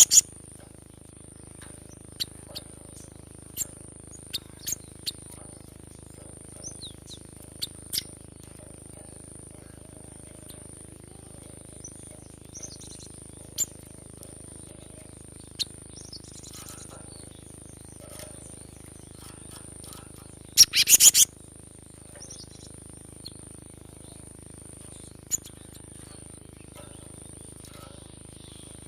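Cinereous tit (gelatik batu) calling: scattered short, sharp high chirps, with a loud rapid run of notes about two-thirds of the way through. A faint steady high-pitched whine sits behind the calls.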